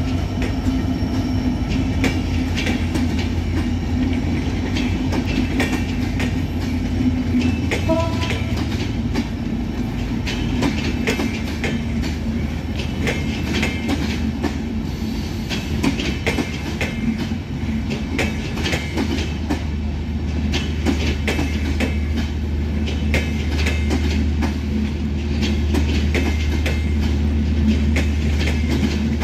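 Bangladesh Railway intercity passenger coaches rolling past at speed, their wheels clattering over the rail joints in a continuous run of clicks over a steady low hum.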